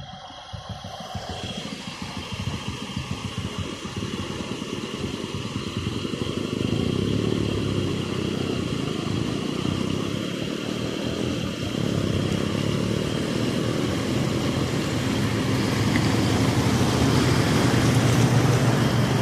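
A motor vehicle's engine running as it moves through flood water, growing louder over the first few seconds, with water rushing and churning around it louder near the end.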